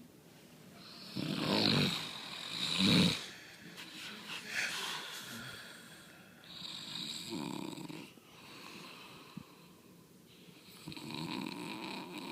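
Snoring: a run of rasping snores with one breath every few seconds, the loudest about two to three seconds in.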